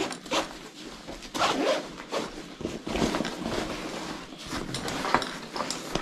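Zippers on a 5.11 tactical backpack being pulled open, with scratchy nylon rustling as its pockets are handled.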